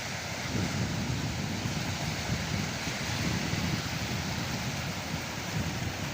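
Sea surf washing and breaking on the shore, a steady rushing noise, with wind buffeting the microphone in a low fluttering rumble.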